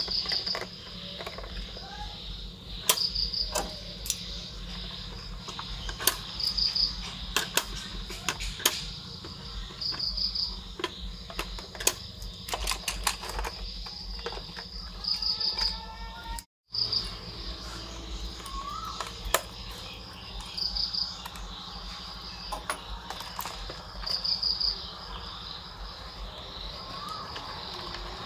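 A cricket chirping in short trills every few seconds, alongside sharp clicks and knocks of a plastic RC excavator and its accessories being handled on a wooden table.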